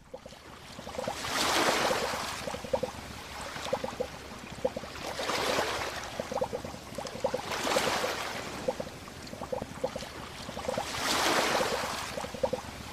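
Sea waves washing in, swelling and fading about four times, with light lapping between them.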